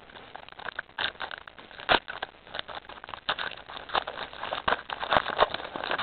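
Foil trading-card pack wrappers and cards being handled, making irregular crinkling and rustling with sharp little crackles scattered throughout.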